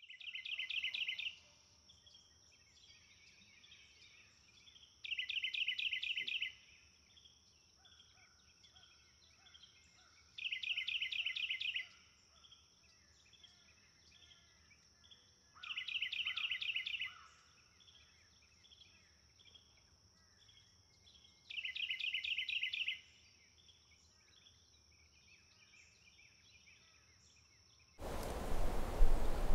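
A songbird singing a short, rapid trill about a second and a half long, repeated five times roughly every five seconds, with faint chirps between and a steady thin high tone behind. Near the end a louder campfire crackle and hiss comes in.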